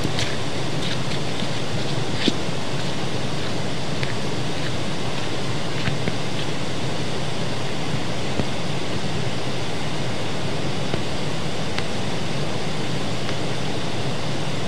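Steady rush of a rocky hillside burn, a fast mountain stream, running at an even level with a few faint clicks over it.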